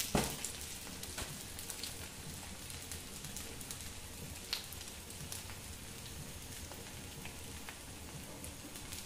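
Wet methi dhapate dough sizzling steadily on a hot iron tawa, with scattered small crackles and pops. A short knock right at the start.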